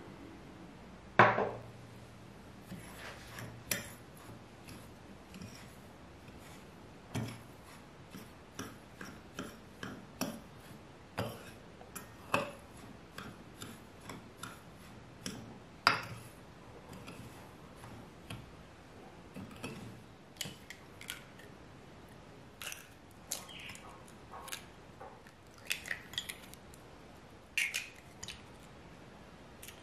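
A metal fork clinking and scraping against a white ceramic tray as flour is stirred into breadcrumbs, in irregular taps with the loudest clink about a second in. Near the end, a quicker run of taps and cracks as eggs are broken into a second ceramic tray.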